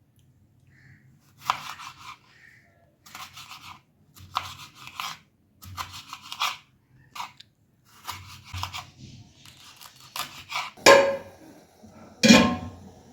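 Kitchen handling sounds: a series of short scraping and rubbing strokes, roughly one a second, with two louder clattering strokes near the end.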